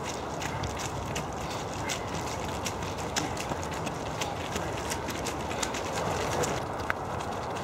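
Runners' footsteps on a muddy woodland trail: irregular light thuds and sharp crunches, several a second, over a steady outdoor noise.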